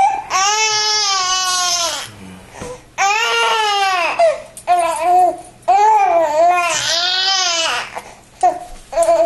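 Newborn baby crying while being bottle-fed: a run of long, high-pitched cries with short breaks for breath between them, and shorter cries near the end.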